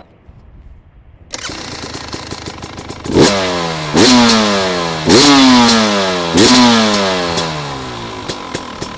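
Fuel-injected 300 cc two-stroke dirt-bike engine with an FMF racing pipe and Akrapovic silencer, running at idle from about a second in. It is then blipped four times, each rev shooting up quickly and falling slowly back toward idle.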